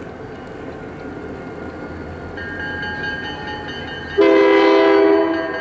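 Air horn of an approaching Canadian Pacific EMD SD40-2 diesel locomotive sounding one loud chord blast about four seconds in, lasting about a second, over the rising sound of the oncoming train.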